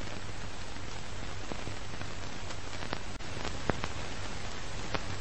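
Old-film soundtrack noise: a steady hiss over a low hum, with scattered crackles and pops.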